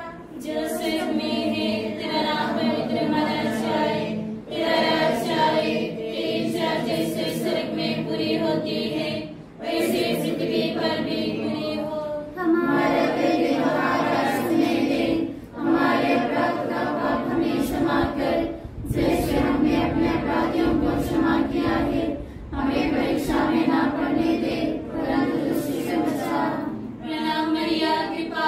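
A group of women and girls singing together without accompaniment, in phrases of a few seconds broken by short pauses.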